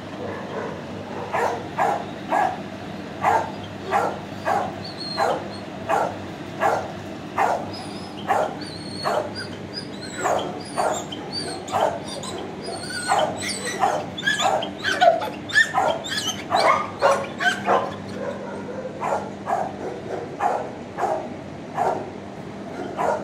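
Dogs barking in a shelter kennel row, sharp barks roughly one to two a second all through, with higher-pitched yips mixed in from about eight to twelve seconds in, over a steady low hum.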